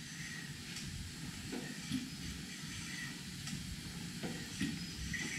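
Fitchburg piston-valve mill steam engine running quietly: a soft steady hiss of steam with a few faint knocks from the moving parts.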